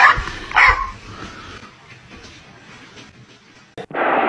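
Dog barking twice in short barks, then a sudden loud, steady rushing noise starts near the end.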